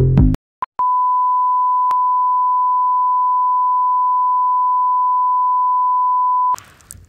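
Electronic intro music stops abruptly, then a single steady test-pattern beep, the tone that goes with TV colour bars, holds for about six seconds and cuts off suddenly.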